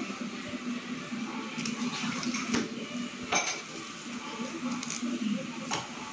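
Kitchen knife slicing through red onion and knocking on a cutting board, in irregular sharp knocks; the clearest come about two and a half, three and a half and nearly six seconds in.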